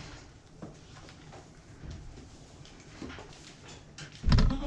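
Light scuffling and soft knocks, then one loud, short knock about four seconds in.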